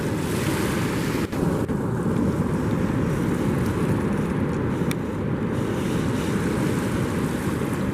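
Wind buffeting the microphone, a steady low rumble, over the wash of beach surf.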